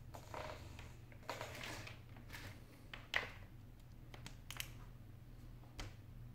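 Faint handling sounds of an iPhone 8 Plus having a Lightning cable plugged in: soft rustles, then a few small clicks and taps, the sharpest about halfway through.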